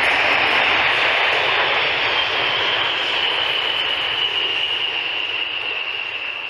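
Four A-10 Thunderbolt II jets flying past in formation, their twin TF34 turbofans making a loud rushing jet noise with a high whine on top. The whine slowly falls in pitch and the whole sound fades as the jets draw away.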